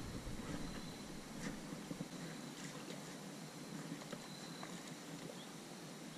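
Faint outdoor background: a low steady hiss with a few scattered soft clicks and a faint steady high-pitched tone.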